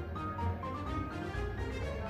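Background music: a melody over a steady low bass.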